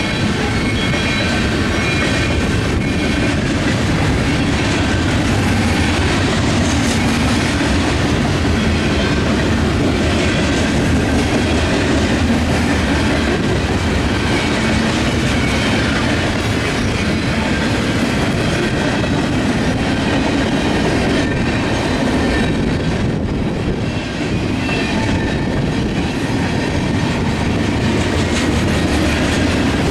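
Freight cars of a Canadian National manifest train rolling past close by, a steady, loud rumble of steel wheels on the rails with faint high-pitched ringing above it.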